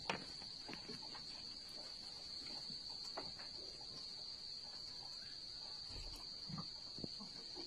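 Steady, high-pitched continuous trill of a cricket, with faint scattered taps.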